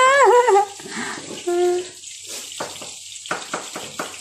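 A brief wavering voice at the start, then a knife chopping on a cutting board in quick, even strokes, about four a second.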